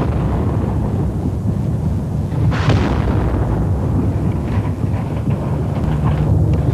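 A shell exploding about two and a half seconds in, a sudden blast that dies away over about a second, over a continuous low rumble of bombardment; another blast begins at the very end.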